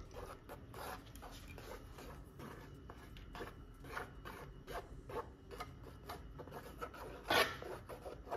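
Plastic straw scraping and rubbing across wet paint on a stretched cloth canvas in short, irregular strokes, with one louder stroke near the end.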